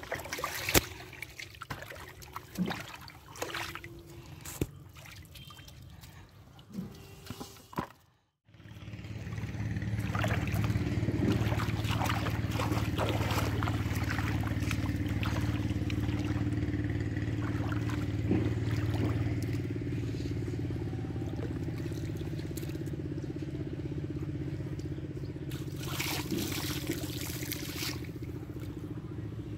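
Muddy water trickling and sloshing with light knocks. After a sudden break about eight seconds in, a much louder steady low engine hum sets in, with water splashing over it.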